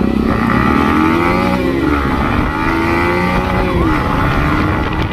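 Yamaha MT-15's single-cylinder engine accelerating through the gears, its pitch climbing and dropping back as it shifts up.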